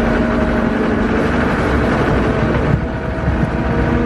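Skid loader engine running steadily under load while pushing snow, with a brief dip in level about three seconds in.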